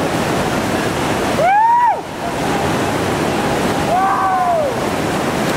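Steady rushing of a big whitewater rapid at high water. Two short calls from onlookers, each rising then falling in pitch, come about a second and a half in and again about four seconds in.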